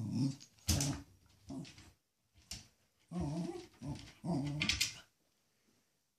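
Agitated Yorkshire terrier growling in several short bouts, with a few sharp yaps, stopping about five seconds in.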